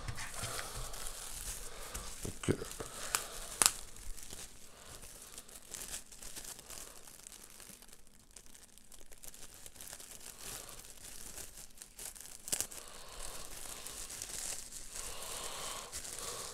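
Thin plastic bag crinkling and rustling as it is handled and pulled open, with a few sharp clicks about two to four seconds in and once more after about twelve seconds.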